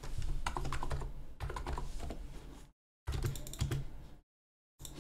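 Typing on a computer keyboard: a quick run of keystrokes, broken twice by short stops.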